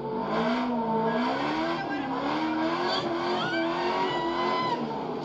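Race car engine revving up and down in quick swings while the car is drifted, heard from inside the cabin, with some tyre squeal. It comes through a TV speaker and sounds thin and boxy.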